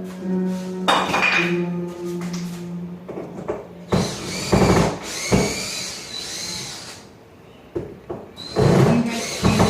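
Power drill running in several short spells, its motor whine rising and falling, with knocks of wood and tools, while dismantling a timber platform. Music plays in the first few seconds.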